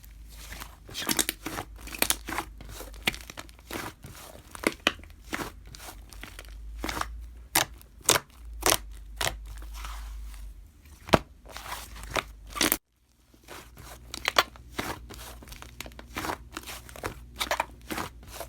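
Slime being squished and pressed by hand, giving many sharp pops and clicks in quick irregular succession. The sound breaks off briefly about two thirds of the way through.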